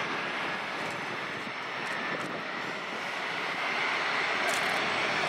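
Boeing KC-135R tanker's four CFM F108 turbofan engines running at taxi power: a steady jet rush with a high whine that grows louder near the end as the aircraft rolls closer.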